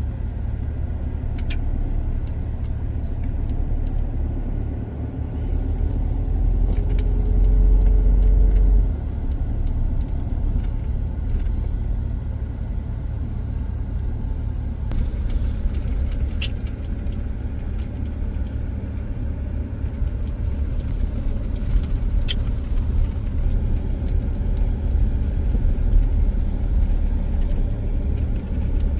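Motor vehicle driving, a steady low engine and road rumble that swells for a couple of seconds around the middle with a brief steady engine tone. A few faint clicks sound over it.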